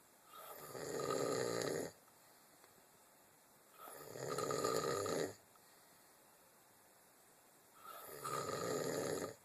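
A man snoring in deep sleep: three long snores about four seconds apart, each starting softer and then growing louder.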